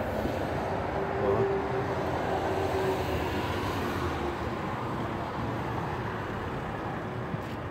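Steady motor-vehicle noise, a low rumble with hiss, with a faint hum standing out from about one to four seconds in.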